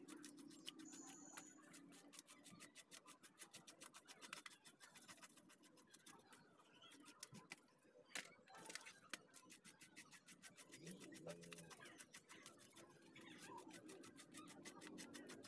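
Faint, rapid scraping of a knife blade stripping scales off a whole fish, several strokes a second, with a short pause about seven seconds in.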